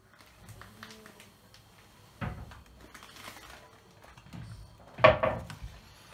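Handling clatter on a kitchen counter: light clicks, a dull knock about two seconds in and a louder double knock about five seconds in, as bottles and containers are picked up and set down.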